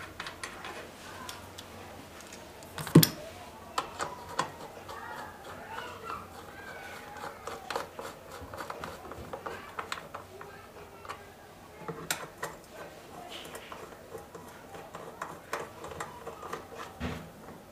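Scattered clicks and light knocks of tools and metal parts being handled while reassembling a Honda GCV160 engine, with one sharp knock about three seconds in.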